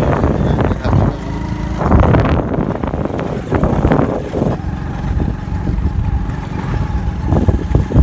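A vehicle engine running under heavy, uneven wind rumble on the microphone, recorded while moving along a road.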